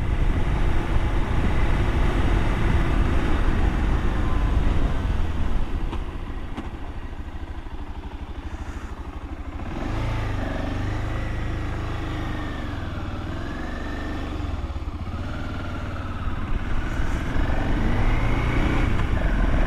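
Motorcycle engine running under way with wind noise. The engine note eases about a third of the way in, then rises and falls with changing revs through the second half.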